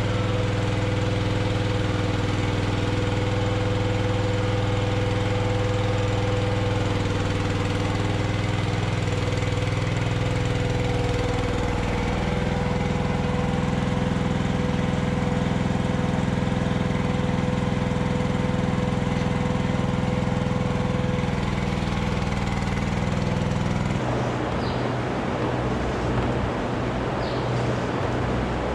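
Engine running steadily, its pitch shifting slightly about halfway through; the sound changes abruptly near the end.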